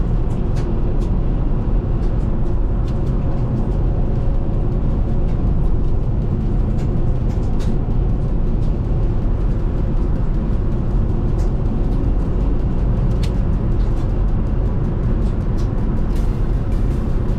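Steady low road and engine rumble inside a car driving on a snowy interstate, with scattered sharp ticks through it.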